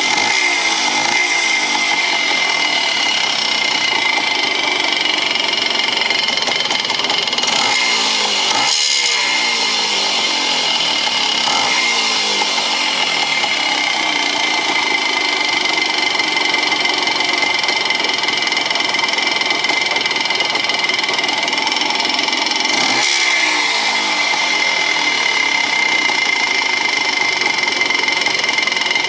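1975 Bultaco Sherpa T 350's single-cylinder two-stroke engine running steadily, with its pitch shifting briefly about a third of the way in and again about three-quarters of the way through.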